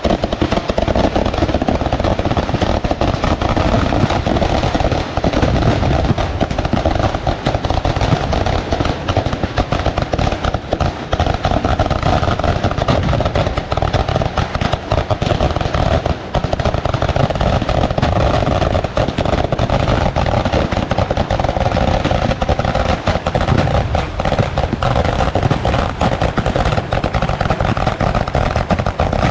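Firecrackers bursting in a dense, unbroken barrage, sharp bangs and crackling piling on one another without a pause. This is the ground-level fireworks of a Kerala temple-festival vedikkettu.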